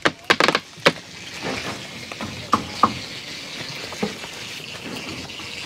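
Wooden formwork boards knocking and clattering as they are worked loose from fresh concrete. There is a quick run of sharp knocks in the first second, then a few scattered taps over a steady background hiss.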